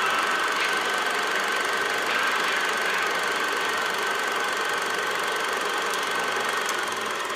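Steady whirring clatter of a Super 8 film mechanism running, with a constant high whine over a low hum.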